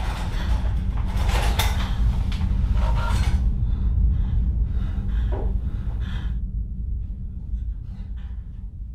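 A deep, steady rumbling drone with rattling, scraping noises over it for the first few seconds; the noises die away and the drone fades toward the end.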